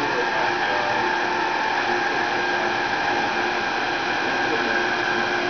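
Industrial roller machine on an artificial-turf production line running steadily: an even machine noise with several faint, steady whining tones.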